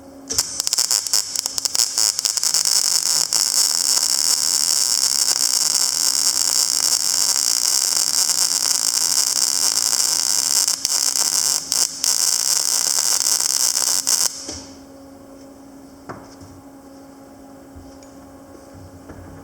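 Panasonic MINI160 semi-automatic wire-feed welder striking an arc and welding a bead: a loud, crackling hiss that starts abruptly, runs steadily for about fourteen seconds with a couple of brief breaks near the end, then stops. The machine's steady hum is heard under it and after it.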